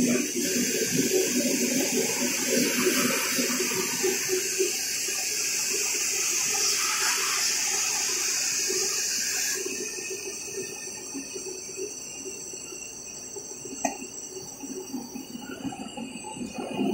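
IECHO TK3S digital cutter running its router module, a high-speed spindle with dust extraction, as a steady hiss over a lower rumble. About nine and a half seconds in the high hiss stops and a quieter machine noise carries on, with a single sharp click near 14 seconds.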